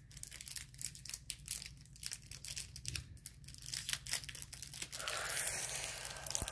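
Foil Pokémon booster-pack wrapper crinkling in the hands, with many small sharp crackles, then torn open with a longer, denser tearing noise from about five seconds in.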